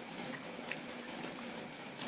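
Close-up chewing of a mouthful of chicken noodles: soft wet mouth sounds with a couple of small smacks, over a steady hiss.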